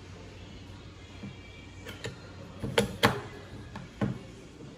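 Sharp metal clicks and knocks as the end bracket of a Canon C800/C850 upper fusing belt unit is handled and fitted on a wooden bench. About half a dozen of them, starting about two seconds in, the loudest near the middle.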